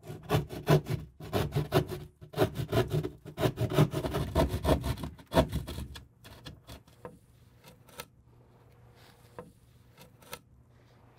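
Hand drywall jab saw cutting through gypsum drywall in quick back-and-forth strokes, about four or five a second. The sawing stops about six seconds in, leaving a few faint knocks.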